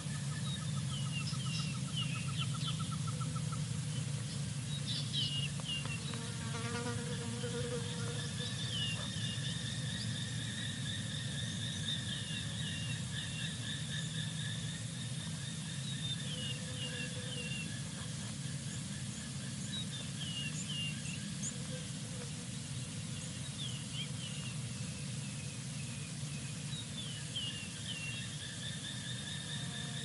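A steady chorus of trilling insects, with groups of short falling chirps every few seconds.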